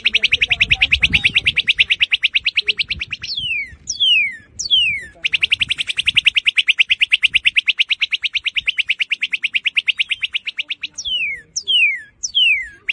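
Northern cardinal singing: long, fast, even trills of rapid notes, broken twice by sets of three loud whistles that each slur steeply downward.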